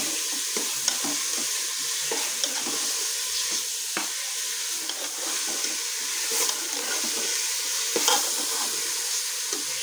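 Split mash (urad) dal frying in spiced oil in a pressure cooker, sizzling steadily while a metal ladle stirs and scrapes through the grains. Now and then there is a short click of the ladle against the pot.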